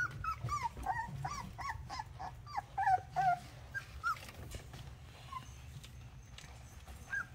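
Australian Shepherd puppies, nearly four weeks old, whimpering: a quick run of short, high whines in the first three seconds or so, then a few scattered ones.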